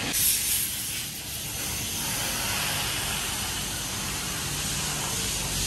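A steady hiss with a low rumble beneath it.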